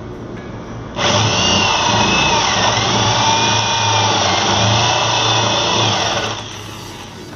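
Electric power tool running for about five seconds: it starts abruptly about a second in with a steady motor whine, dips briefly in pitch partway through, then winds down.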